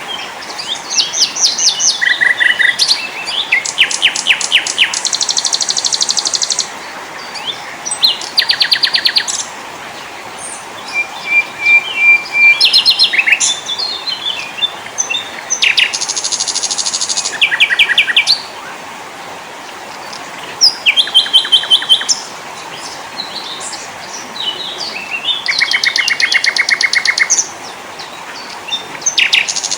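Several small songbirds singing in turn: phrases of rapid high chirps and trills, each a second or two long, with short pauses between them over a steady hiss.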